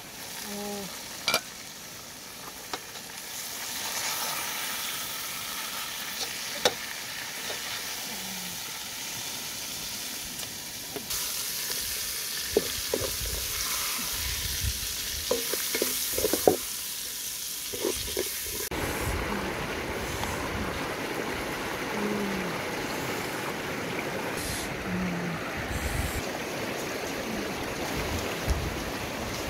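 Chicken and cabbage sizzling in a metal pot over a wood fire while a wooden spoon stirs and knocks against the pot, with a clink of the metal lid about a second in. From about two-thirds of the way through, the steady rush of a shallow river over stones takes over.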